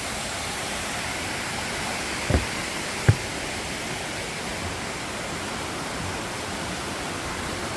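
Steady rushing of a waterfall close by, with two short knocks a little over two and three seconds in.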